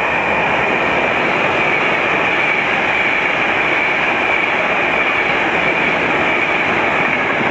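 A Virgin Class 390 Pendolino electric train running through the station at speed, close by: a loud, steady rush of wheels on rail and air, with a steady high-pitched whine running through it.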